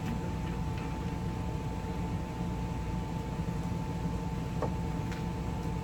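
Steady machine hum and hiss with a constant pitched tone, with a couple of faint clicks near the end.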